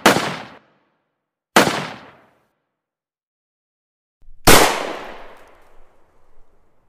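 Three gunshot sound effects: two sharp shots about a second and a half apart, then a louder one about three seconds later with a long echoing tail.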